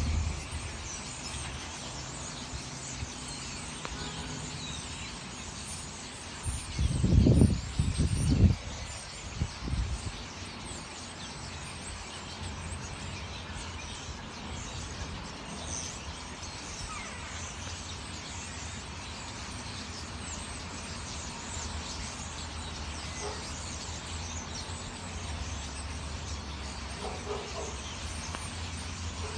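Many small birds chirping and twittering together in a tree, over a steady low background rumble. A few loud low rumbles stand out about seven to ten seconds in.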